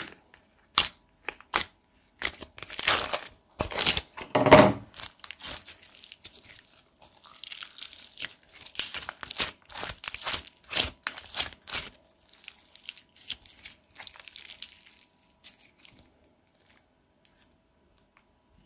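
Slime being squished and mixed by hand, giving a run of crackling pops and squelches. It is loudest a few seconds in and thins out, stopping a couple of seconds before the end.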